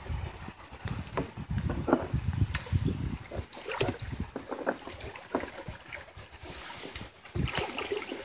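Wind buffeting the microphone, with water lapping against a kayak's hull and a few short, sharp splashes.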